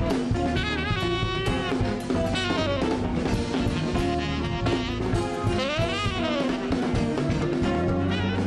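Jazz fusion band playing live: a tenor saxophone leads with wavering and sliding notes over a drum kit.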